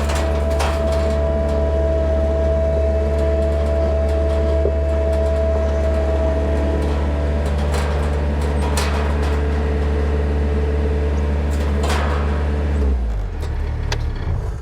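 An engine idling steadily with a few metallic knocks over it, then running down and stopping as it is switched off near the end.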